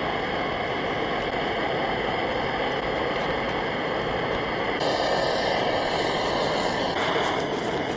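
Steady rushing hiss of a camp stove burner running at full flame, with a faint whistle in it, cutting off abruptly at the end.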